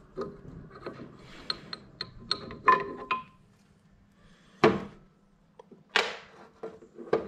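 Hand tools and metal parts clinking and knocking while a motor tricycle's gearbox is being taken apart: scattered light taps and clinks, one briefly ringing, and two louder sharp knocks in the second half.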